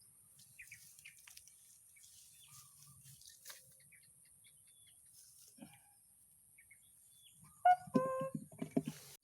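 Quiet outdoor ambience: faint scattered bird chirps over a steady high insect hiss. About seven and a half seconds in comes a short, loud pitched vocal sound lasting about a second and a half.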